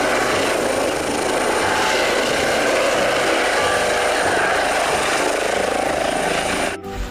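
Eurocopter EC135 air ambulance helicopter flying low: steady turbine and rotor noise with a thin high whine above it, cutting off suddenly near the end.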